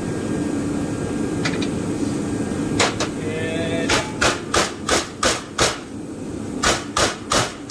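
Hammer striking a welded aluminum plate clamped in a bench vise: two blows, a brief metallic ring, then a run of about six quick strikes at roughly three a second, a short pause, and four more strikes near the end.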